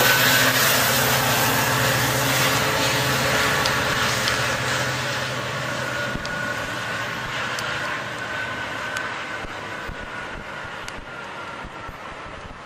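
Metrolink commuter train pulling away, its EMD F59PH diesel locomotive's engine and the wheels on the rails fading steadily as it recedes. A thin high wheel tone and a few clicks from rail joints sound through it.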